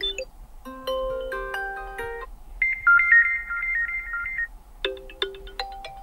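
Xiaomi 13 Pro ringtone previews playing through the phone's speaker: three short melodies of clean electronic notes in turn, each cut off after a second or two when the next one starts. The middle one is higher and the loudest.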